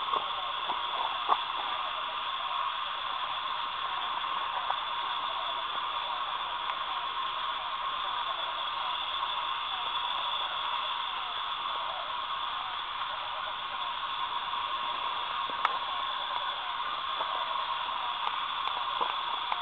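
Dense, unbroken chirring of night insects, steady throughout, with a few faint clicks.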